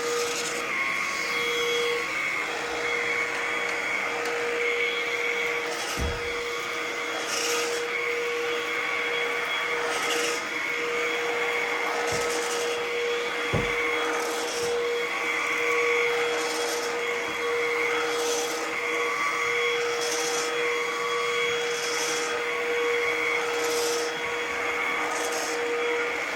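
Ozito PXC 18V cordless stick vacuum running on its eco setting and being pushed back and forth over carpet with its motorised brush: a steady motor hum with a swish on each stroke. There are a couple of low knocks about six and thirteen seconds in.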